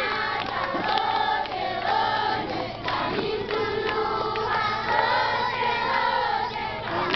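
A large crowd of children singing together.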